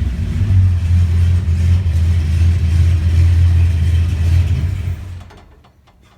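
A 1955 Chevy's 327 small-block V8 running with a steady, loud low rumble, cutting off about five seconds in.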